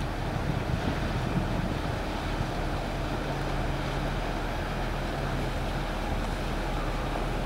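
Wind on the microphone and water lapping at the shore, a steady rushing noise, with a faint steady low hum through the middle.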